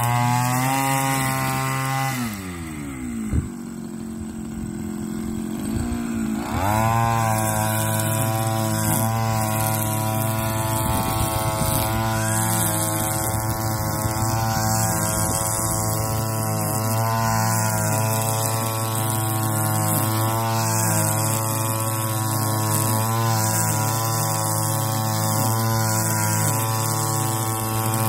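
Backpack petrol brush cutter engine running at high revs while cutting grass. About two seconds in it drops to idle for a few seconds, with one sharp knock, then revs back up and runs steadily, its pitch dipping slightly and recovering every second or so.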